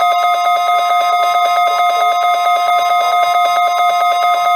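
A loud, steady electronic tone over NOAA Weather Radio, one held pitch with several higher overtones, drowning out the forecast voice.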